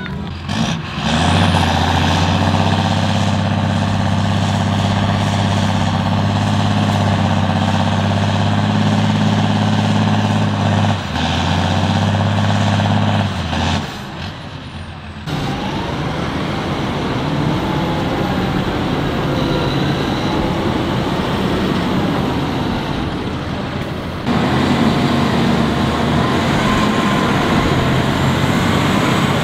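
Big farm tractor diesel engines working hard under load, pulling a loaded Tatra dump truck. The engine note holds steady at first, then rises and falls in the middle, with abrupt changes at about 14 and 24 seconds in as the shot changes.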